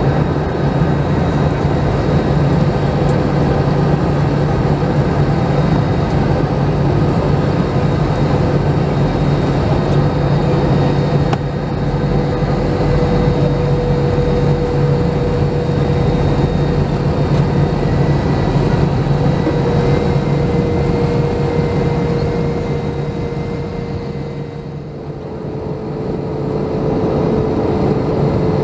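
Steady cabin roar of an Airbus A321's twin CFM56-5B turbofans and the airflow, heard from a seat over the wing during descent. A steady low hum runs underneath, and an engine whine steps slightly lower twice. The noise eases briefly near the end and then builds again.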